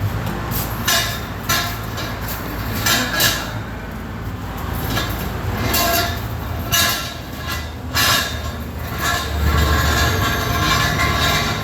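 Steady low mechanical hum with a string of short, harsh metallic tool bursts every second or so, irregularly spaced, during work to extract broken compressor bolts from an engine block.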